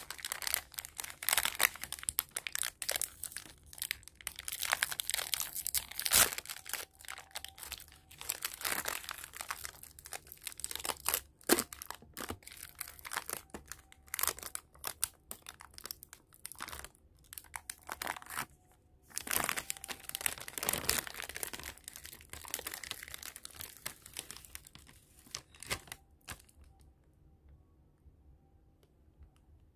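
Foil cake wrapper crinkling and crackling as hands pull it open and peel it back, in dense irregular crackles that stop near the end.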